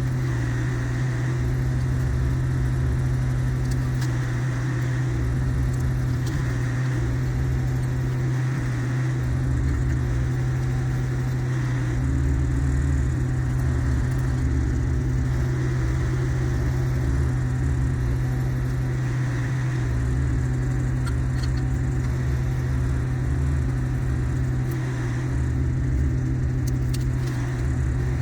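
Engine running at a steady speed, a constant low drone with a rumbling low end and no revving up or down.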